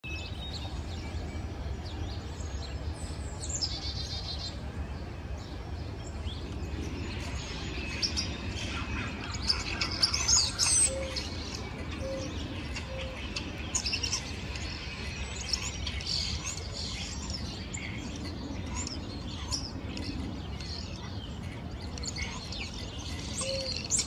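Backyard birds chirping, whistling and calling over one another, including a quick rattle, busiest and loudest about ten seconds in. A few short, low notes come in around the middle and again near the end, over a steady low background rumble.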